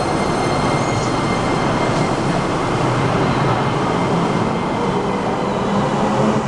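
JR 115 series electric train pulling out of the station, its cars rolling past with a steady rumble.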